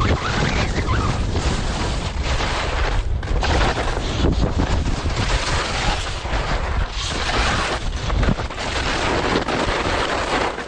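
Wind buffeting the microphone during a fast ski descent, a heavy uneven rumble, over the hiss and scrape of skis on snow.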